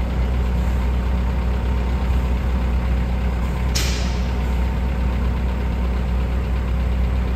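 Forklift engines idling steadily under load, with one short, sharp hiss about four seconds in.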